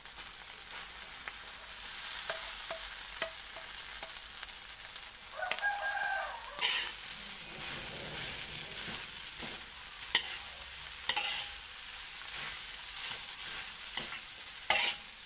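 Rice stir-frying in a hot, oiled metal wok: a steady sizzle that grows louder about two seconds in, as a metal spatula stirs and scrapes through it, with several sharp clacks of the spatula against the wok.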